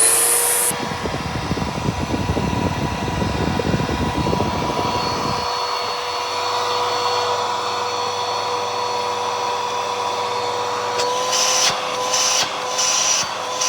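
Bissell PowerForce Helix upright vacuum cleaner running steadily with a high whine, just after being switched on. A low rumble under it stops about five seconds in, and a few short hissing surges come near the end.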